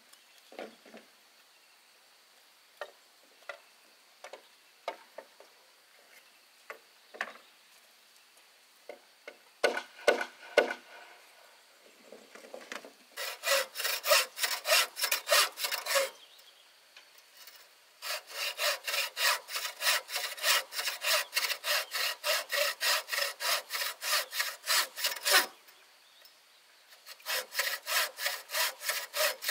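Hand saw cutting bamboo in quick back-and-forth strokes, about four a second, in three spells separated by short pauses. Before the sawing starts, a few scattered light knocks and taps.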